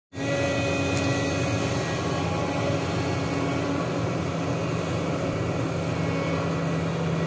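Sany SY365H hydraulic excavator's diesel engine running steadily under working load as the bucket works through soil and roots. It makes a steady low hum, and a higher tone in it drops away about halfway through.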